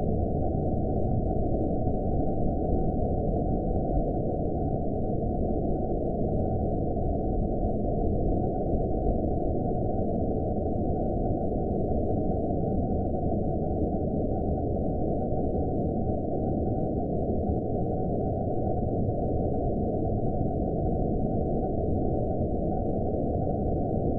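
Horror-film ambience: a steady, dark, low rumbling drone of muffled noise with a faint thin high tone held above it, unchanging throughout.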